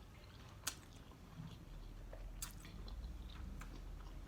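Faint wet chewing of a mouthful of spicy instant noodles, with a sharp click about two thirds of a second in and softer clicks later.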